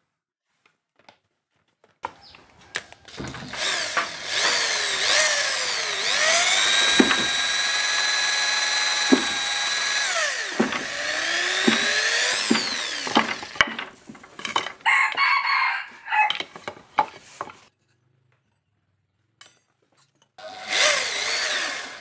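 Electric power tool's motor, starting about two seconds in with a rising whine. It runs steadily for several seconds, winds down, and is revved again briefly. Uneven rough noise from the tool at work follows, then about two seconds of quiet and one more spin-up near the end.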